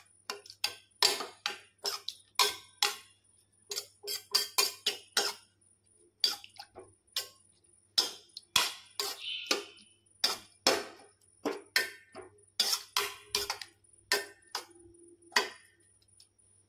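A wooden spoon stirring carrot and milk in a stainless steel pan, knocking and scraping against the metal in quick irregular strokes, two or three a second, with each stroke briefly ringing the pan. The stirring stops about a second before the end.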